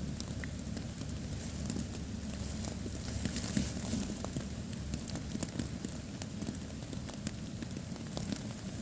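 Rain pattering on a tarp shelter, with steady hiss and irregular sharp drip ticks.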